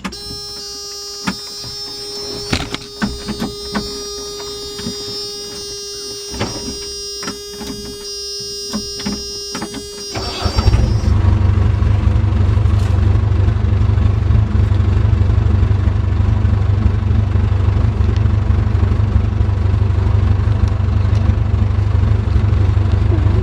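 A steady electronic warning tone sounds in a JCB backhoe's cab, with scattered clicks and knocks, while the key is on before starting. About ten seconds in, the backhoe's diesel engine starts, the tone stops, and the engine runs steadily.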